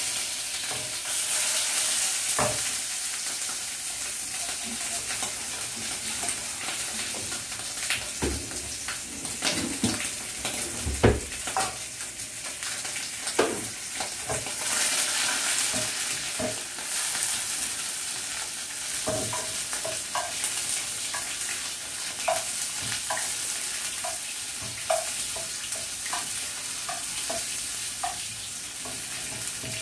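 Shrimp sizzling steadily in hot oil in a wok, with scattered clinks and knocks against the pan; a few louder knocks come near the middle.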